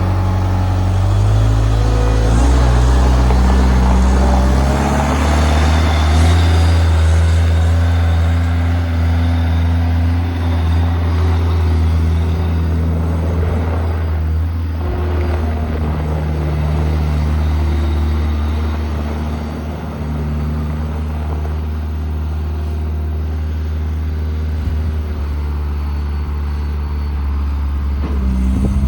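Diesel engine of a 2005 Cat 232B skid steer loader running, revved up in steps within the first couple of seconds and held at high speed, its note shifting now and then as the load changes.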